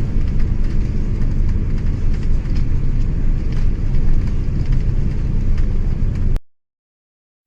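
Steady low engine-like rumble with a few faint ticks, cutting off suddenly about six and a half seconds in.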